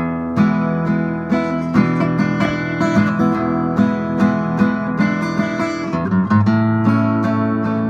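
Strummed acoustic guitar music, steady and rhythmic, with no singing.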